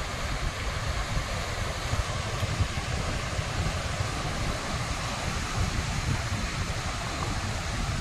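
Sea surf washing onto a beach, a steady rushing hiss, with wind buffeting the microphone in an uneven low rumble.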